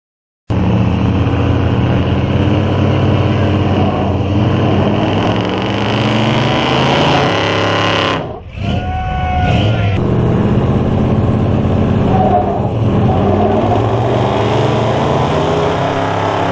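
Two pickup trucks, one an old black Ford, running hard at high revs in a tug of war, their rear tyres spinning and smoking on the pavement. The sound cuts in about half a second in, and the engines drop off briefly about eight seconds in before pulling hard again.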